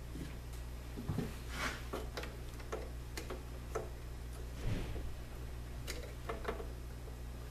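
Irregular small clicks and taps of hands working among the wiring and internal parts of an opened Saeco Magic Deluxe espresso machine, with a duller knock a little past halfway, over a steady low hum.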